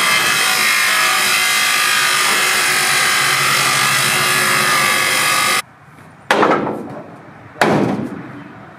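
Angle grinder grinding into a steel truck frame rail, a loud steady grinding with a few held tones, which cuts off abruptly about five and a half seconds in. Two sharp knocks follow, about a second and a half apart.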